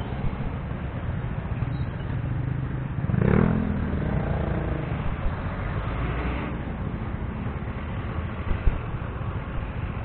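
Street traffic heard from a moving vehicle: a steady engine and road rumble, with a nearby engine revving up louder for about a second around three seconds in, and a single short knock near the end.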